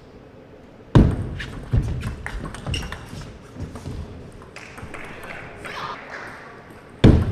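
Table tennis point: a loud thud as the serve is played about a second in, then the sharp clicks of the ball off rackets and table through a short rally of a few strokes. A second loud thud comes near the end with the next serve.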